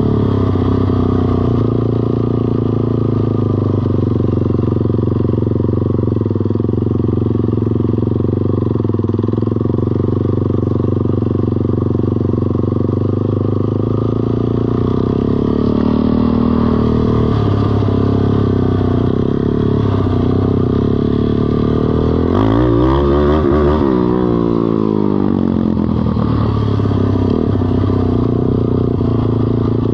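Small ATV engine running at a steady speed, with a brief sweep in pitch about three-quarters of the way through.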